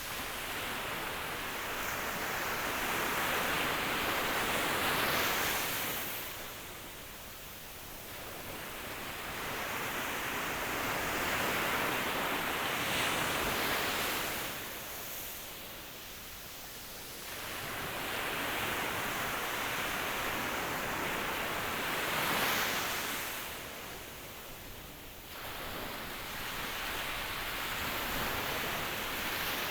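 Ocean waves surging in and washing back: a steady rush of surf that swells and fades in long surges, three or four times in the stretch.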